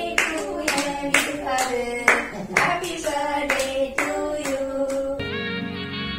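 Several people clapping in time, about two claps a second, while singing a birthday song together. About five seconds in this cuts to background music.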